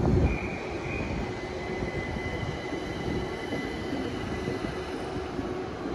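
Electric commuter train at the platform, giving a steady high-pitched whine over a low rumble. The whine sets in just after the start and fades out near the end.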